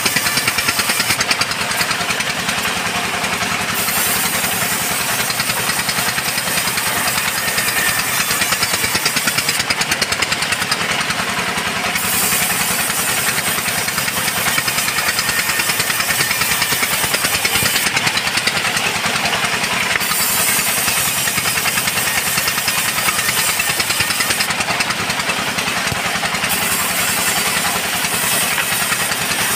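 Petrol chainsaw engine mounted in a sawmill rig, running steadily under load as its chain rips lengthwise through a mahogany beam.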